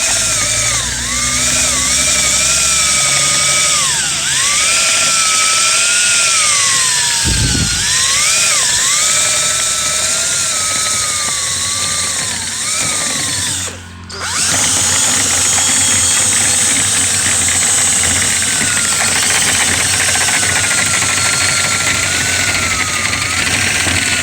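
Power drill spinning a rotary brush through a lint-clogged dryer vent duct, its motor pitch wavering up and down with trigger and load over a steady rushing noise. It cuts out for a moment about halfway through, then runs again more evenly.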